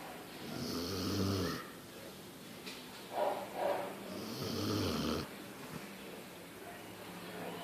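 A sleeping dog snoring in a slow, regular rhythm: two long snores about three and a half seconds apart, with a couple of short puffing breaths between them.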